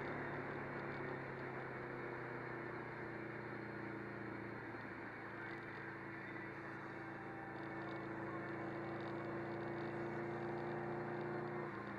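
Subaru WRX's turbocharged flat-four engine running at a steady cruise, heard from inside the cabin over road noise. It swells slightly about two-thirds of the way through and then eases off near the end.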